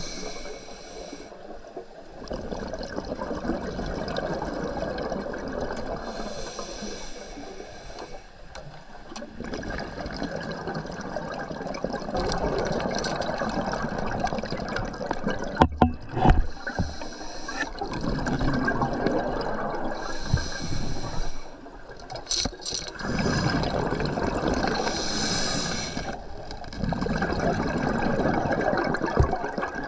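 Scuba diver breathing through a regulator underwater: short hissing inhalations alternating with long, bubbling exhalations. A few sharp knocks come about halfway through.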